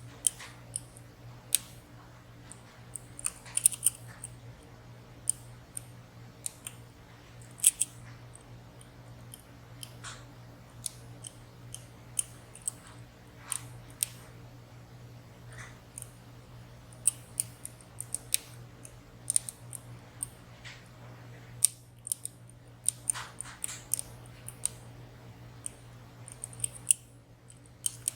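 Lock picks working in the keyway of a WSW W10 high-security padlock with five sliders and six pins: irregular small sharp metallic clicks and light scrapes as the elements are lifted, set and let drop. Some clicks come singly and some in quick clusters.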